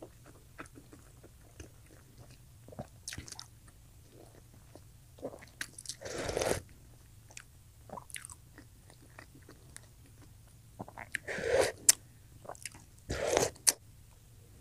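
Close-miked eating: chewing a mouthful of hard-boiled egg and instant noodles, with many soft wet mouth clicks and smacks and three louder chewing bursts about six, eleven and thirteen seconds in.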